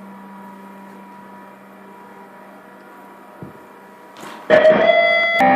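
Steady low hum with one faint click, then about four and a half seconds in a loud ringing chord with strong steady overtones cuts in, and a second chord sounds just before the end.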